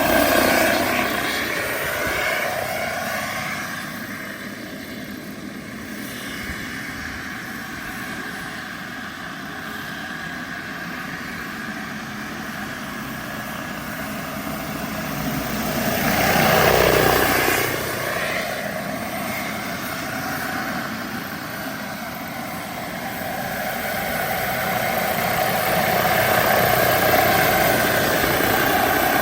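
Radio-controlled scale Bell 212 model helicopter with Jetcat PHT-3 XL turbine engines in flight, turbine whine and rotor sound together. It grows loud as it passes close at the start and again about 17 seconds in, the pitch dipping and recovering as it goes by.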